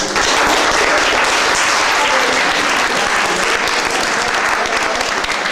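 Audience of children and adults applauding: many hands clapping, breaking out all at once and keeping up steadily.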